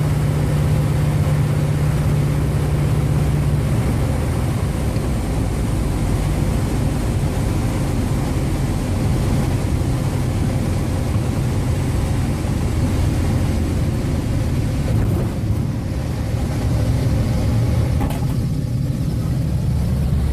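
T-28 Trojan's radial piston engine running with a steady low drone. A low steady tone in it changes about four seconds in.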